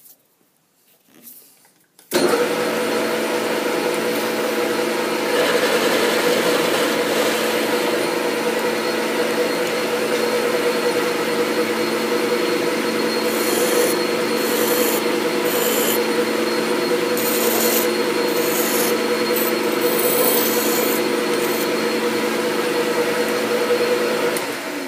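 Metal lathe switched on about two seconds in, its spindle and gearing running with a steady hum and whine, then winding down just before the end. In the second half a hand file is stroked against the spinning steel shaft several times, giving short rasping strokes over the machine's hum.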